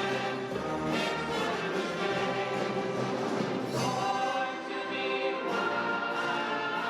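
An orchestra with brass playing sustained chords, dipping briefly in volume about four and a half seconds in.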